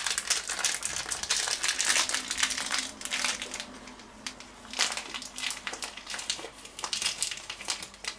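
Plastic bag of dried herbs crinkling as it is handled, in irregular bursts with a brief lull about halfway through.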